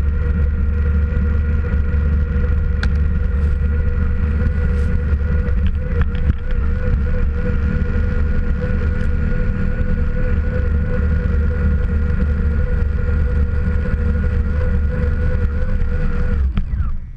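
Onboard sound of an Axial RC truck driving through snow: a steady motor and gear whine over heavy wind rumble on the microphone and snow spraying against the body. It cuts off sharply near the end as the truck stops.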